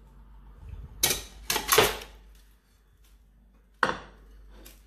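Raw mutton pieces tipped from a plate into a metal cooking pot, with a cluster of clattering knocks of plate and spoon against the pot about a second in and one sharp knock near the end.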